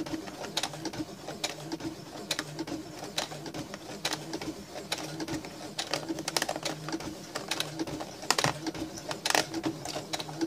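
Domestic electric sewing machine stitching through thick layers of leather: the motor hums while the needle clacks in slow, uneven strokes, about one or two a second.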